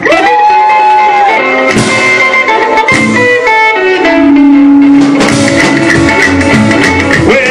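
Live rockabilly band kicking off a song with an instrumental intro: electric guitar leads over drums, opening with a note sliding upward.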